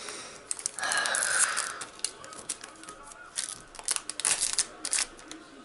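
Foil wrapper of a Pokémon trading card booster pack being torn open: one long rip about a second in, then scattered crinkling crackles of the foil as the pack is handled.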